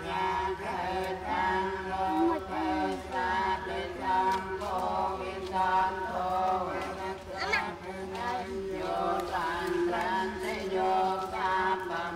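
Buddhist prayer chant: several voices chanting together in a steady, drawn-out recitation.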